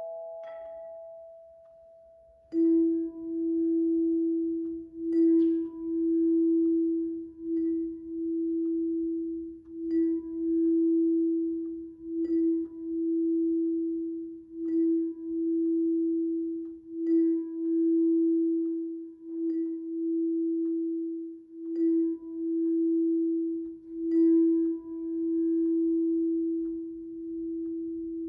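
Handchimes ringing: a few higher notes die away over the first two seconds. Then one low note is struck again about every two and a half seconds, each stroke ringing on into the next, so the tone is sustained with a gentle pulse.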